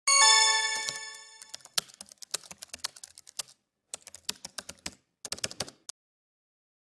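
A bell-like chime rings out and fades over about a second. It is followed by a run of light, quick clicks like typing on a keyboard, in three short bursts with brief gaps between them.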